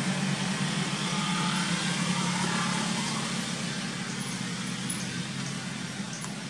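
A steady engine hum with hiss above it, slowly fading.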